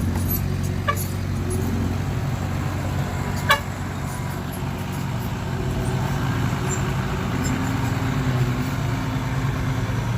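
Heavy diesel engine of a dump truck running steadily, with a short sharp knock about a second in and a louder one about three and a half seconds in.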